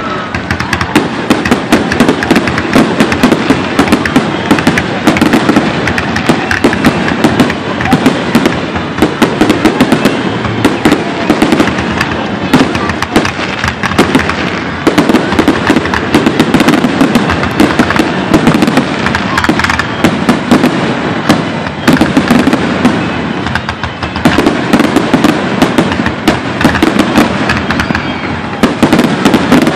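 Aerial fireworks shells bursting in quick succession: a dense, continuous run of bangs and crackling with no pauses.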